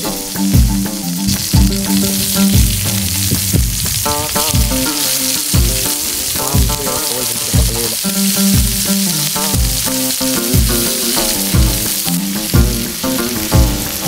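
Chicken pieces and onions sizzling in hot oil in a metal pan over a wood fire, under background music with a steady beat of about one thump a second.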